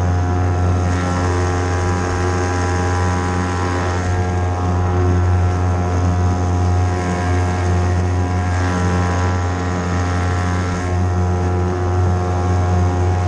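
Hangkai 3.5 hp outboard motor running at a steady speed with the boat under way: an even, unbroken drone with a strong low hum.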